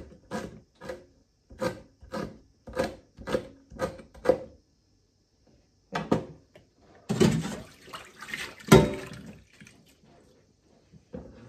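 Kitchen knife chopping carrot leaves finely on a cutting board, about two even chops a second for the first four seconds or so. After a short pause, a burst of running water of about two and a half seconds with a sharp knock in the middle.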